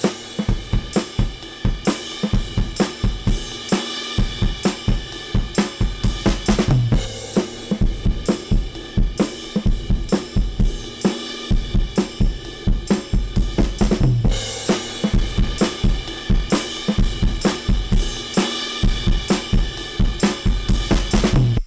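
Recorded drum kit groove of kick, snare, hi-hat and cymbals played back through the McDSP KD1 Kinetic Drive's analogue saturation circuits, giving the drums added distortion and chunkiness.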